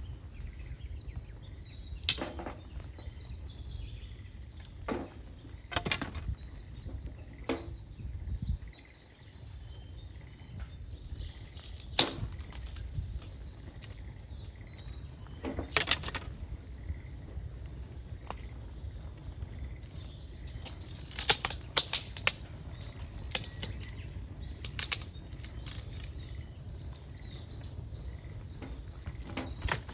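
A songbird repeats a short chirping phrase every few seconds, over a steady low rumble. Sharp cracks break in at irregular moments, with a cluster of them near two-thirds of the way through.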